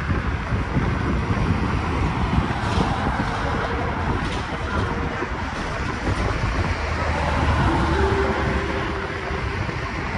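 Steady engine and road noise heard from inside a moving city bus, with a faint whine rising briefly about seven seconds in.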